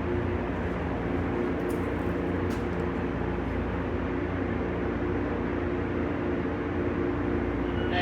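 Machinery running steadily: a constant low hum with several steady tones over an even mechanical noise.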